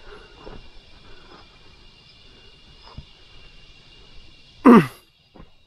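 Steady chorus of night insects such as crickets, one continuous high trill. Near the end there is one short, loud sound that falls in pitch.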